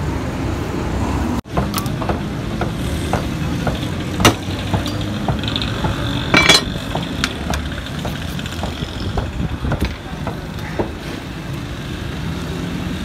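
Open-air market ambience: a steady street-traffic rumble with scattered knocks and clicks. Two louder strikes come about four and six and a half seconds in, the second a short clatter. The sound cuts out for a moment about one and a half seconds in.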